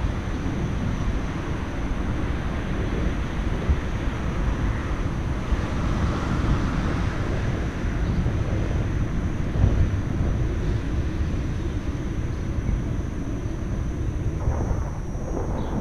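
Steady rumble of city road traffic with wind buffeting the microphone; the traffic noise swells a little around the middle, as of vehicles passing.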